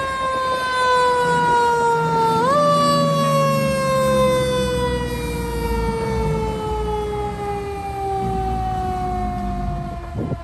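Fire engine siren: one wailing tone that falls slowly in pitch, winds up quickly about two seconds in, then winds down slowly for the rest. The rumble of a passing fire engine sits under it.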